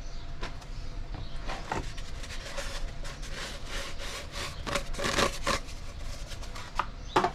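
Blue paper shop towels being pulled off a roll and torn, heard as a run of short rustling, scraping strokes, thickest in the middle, with a louder stroke near the end.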